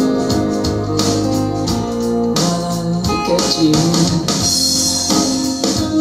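A pop-rock song with guitar and keyboard played back through a pair of DIY bookshelf loudspeakers and picked up in the room, mostly an instrumental passage, with the vocal line coming back in at the very end.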